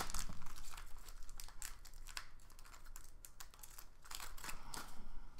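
Foil wrapper of a hockey trading-card pack crinkling and tearing as it is pulled open by hand, in quick irregular crackles. The crackles are loudest right at the start and pick up again near the end.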